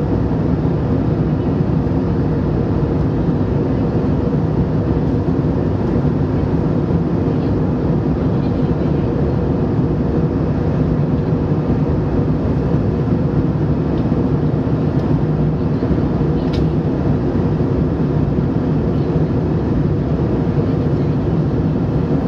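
Jet airliner cabin noise in cruise flight: a loud, steady rush of engine and airflow with a low, even hum, heard from a window seat inside the cabin.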